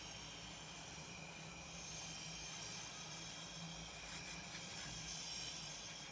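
A cocktail straw blowing air onto wet watercolour paint on paper, a steady breathy hiss that stops near the end.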